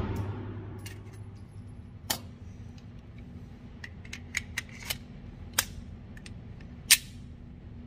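Echo of a 9mm pistol shot dying away in an indoor range, then light metallic clicks and clacks of a Glock 43X being handled with its slide locked back and the magazine drawn from the grip, with a sharper clack near the end.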